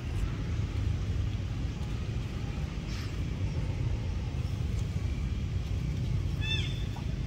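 Steady low outdoor rumble, with a short run of quick, high, falling chirps about six and a half seconds in.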